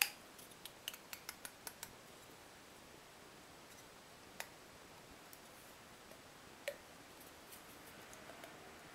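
Light clicks of a steel ball bearing and hard 3D-printed plastic parts being handled and pushed together: a sharp click at the start, a quick run of small clicks over the next two seconds, then two single clicks about four and a half and seven seconds in.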